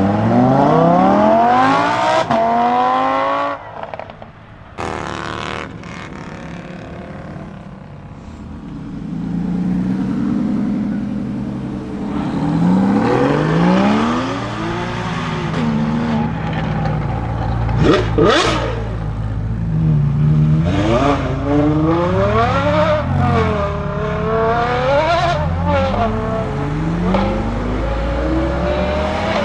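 Lamborghini Huracán STO's V10 engine accelerating hard, its note climbing steeply for the first few seconds before dropping away. After a quieter stretch the revs rise and fall again and again through the rest, with one sharp crack about two-thirds of the way in.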